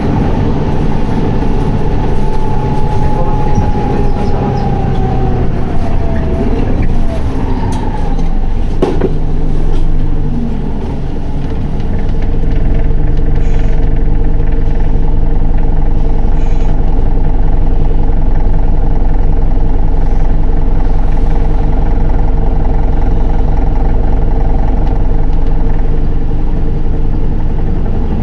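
Onboard running sound of an Isuzu Erga 2PG-LV290N3 city bus's four-cylinder diesel: the engine note falls steadily in pitch as the bus slows over the first several seconds, dips briefly around ten seconds in, then holds at one steady pitch for the rest of the stretch.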